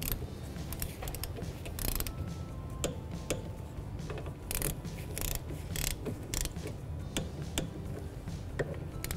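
Ratchet wrench clicking as a 14 mm socket runs in and tightens the brake caliper slider bolts, with irregular metal clicks and knocks.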